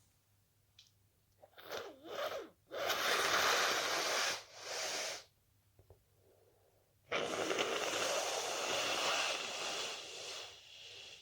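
A person in a sneezing fit. A few quick catching breaths are followed by long, forceful blasts of air through the nose, the last lasting about four seconds and fading near the end.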